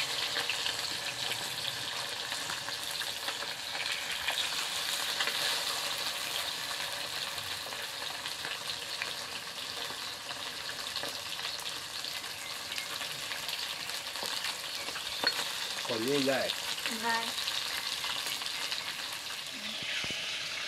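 Fish pieces rubbed with salt and turmeric sizzling steadily as they fry in mustard oil in an iron kadai, with the occasional scrape of a metal spatula turning them.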